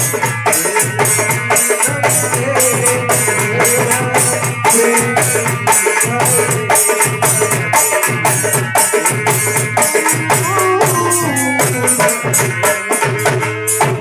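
Dholak drumming in a fast, steady rhythm under a wavering melodic line in an instrumental passage of a devotional song, ending abruptly.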